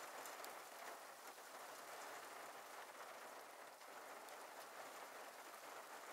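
Light rain falling in a faint, steady patter, with scattered ticks of single drops.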